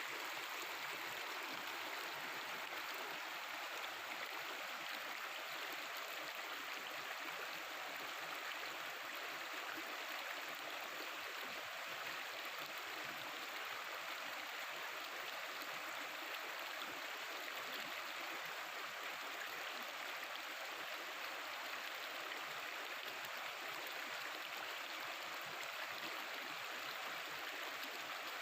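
Mountain river water flowing and gurgling over rocks, a steady even rush.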